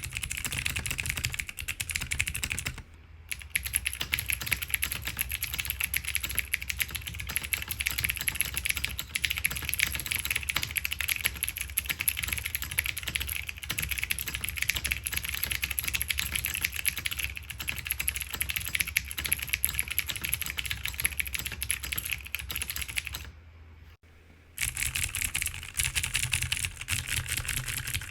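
Fast continuous typing on an NRD Kaze mechanical keyboard with Razer Green clicky switches, GMK keycaps and a polycarbonate plate, a dense run of keystroke clicks. The owner finds the switches' springs crunchy. The typing pauses briefly about three seconds in and again near the end, and between those pauses it is heard through a camera's built-in microphone with a steady high hiss.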